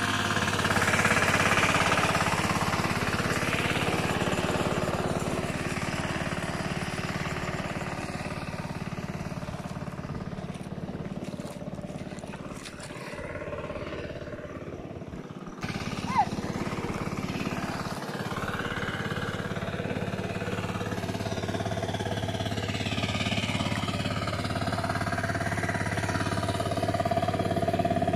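Engine of a tractor plowing a flooded rice paddy, running steadily.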